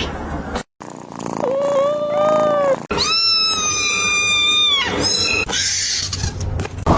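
Kitten meowing: a short call about a second and a half in, then a longer, higher meow from about three seconds in that drops in pitch at its end.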